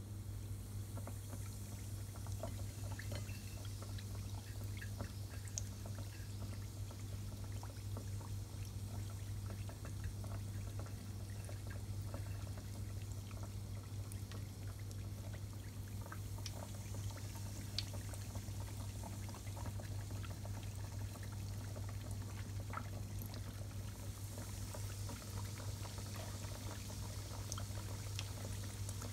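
Breaded food deep-frying in hot oil: a steady sizzling hiss with many small scattered crackles and pops, over a steady low hum.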